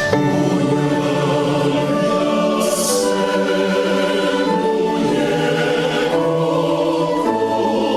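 A choir singing a slow hymn in long held chords.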